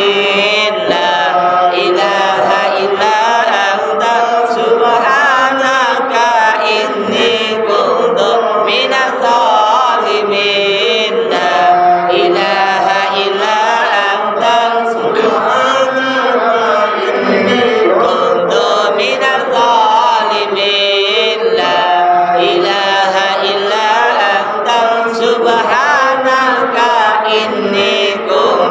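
Melodic Arabic chanting of istighosah supplications and dhikr, unbroken throughout, the voices holding long notes that waver and bend in pitch.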